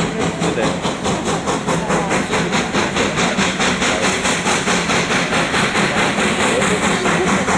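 Steam locomotive under steam pulling its coaches, its exhaust chuffing in a rapid, even beat of about four to five a second.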